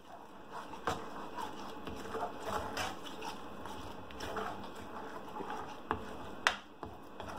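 A spatula stirring and scraping thick chilli paste around a non-stick frying pan, with soft irregular scrapes and a few light clicks against the pan.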